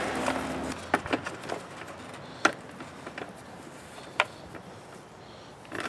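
Hand tools working the fan shroud bolts on a Briggs & Stratton lawn mower engine: a brief scraping, then a few scattered metal clicks and taps, the sharpest about two and a half seconds in.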